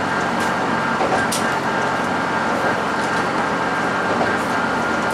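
Diesel railcar running along the track, heard from the cab: a steady engine and running noise with a faint steady whine, and a couple of faint sharp ticks in the first second or so.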